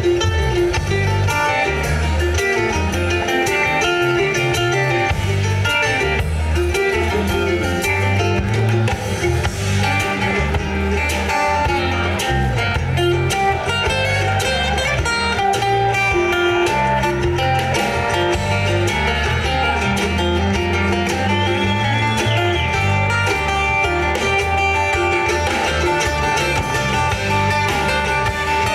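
Live acoustic-electric bluegrass band playing an instrumental passage: mandolin and acoustic guitar picking over a steady bass line and drums.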